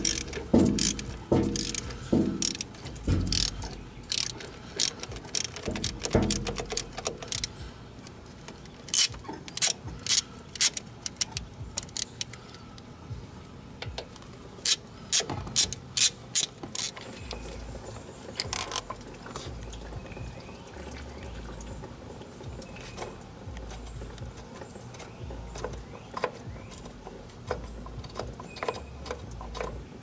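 Socket ratchet clicking as it backs out the bolts of a Kubota L3240 tractor's thermostat housing. The clicks come in quick runs with pauses between them, busiest in the first half.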